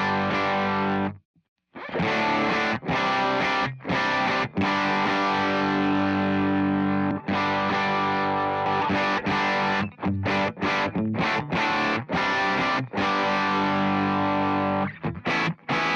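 Electric guitar played through distortion and effects, recorded direct: sustained chords that are repeatedly cut off short, with one brief full stop just over a second in.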